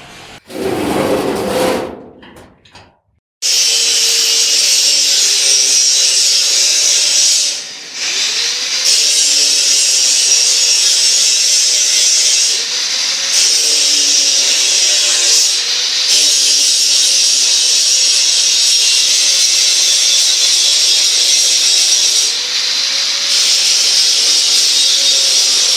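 Factory machinery: a short machine sound near the start, then after a moment of silence a loud, steady machine noise with a strong high hiss, easing off briefly four times, of the power-tool or cutting kind.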